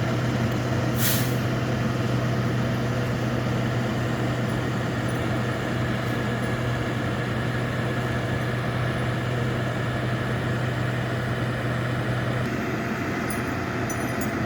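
Bucket truck's engine running steadily to power the boom as it lifts the bucket, with a short hiss about a second in. The engine note changes near the end.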